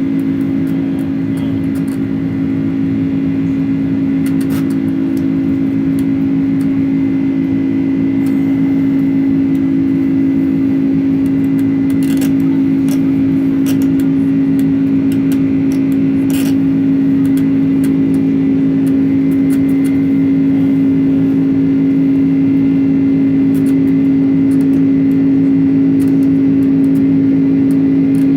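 Boeing 767-300ER jet engines running steadily: a loud, constant low drone with a steady hum in it, growing slightly louder over the stretch, with a few faint clicks.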